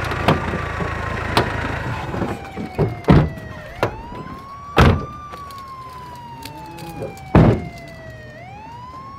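Police siren wailing, each cycle a quick rise and a long slow fall, repeating about every three and a half seconds. Several loud thumps of car doors shutting cut through it.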